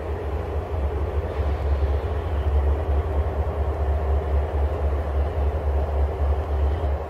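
Diesel freight locomotive running with a steady, deep rumble as it moves slowly at the head of a loaded crude oil tank car train.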